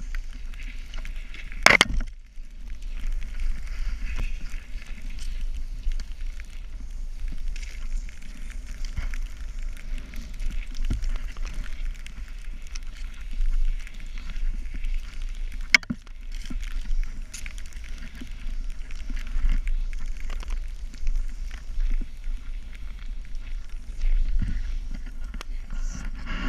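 A snowboard sliding through deep powder snow: a steady hiss of board and spray over a low rumble, with two sharp knocks, one about two seconds in and another near the middle.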